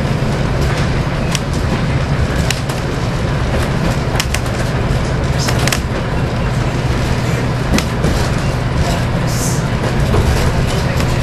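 Class 108 diesel multiple unit under way, heard from the driving cab: a steady low diesel drone with the rumble of wheels on the track, broken by scattered sharp clicks and knocks.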